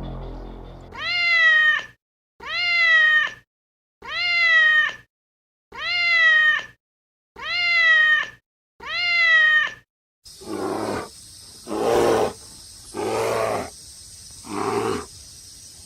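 A cat meowing six times in a row, each meow the same falling-then-rising call just under a second long. About ten seconds in it gives way to a different animal's series of five rough, throaty calls about a second apart.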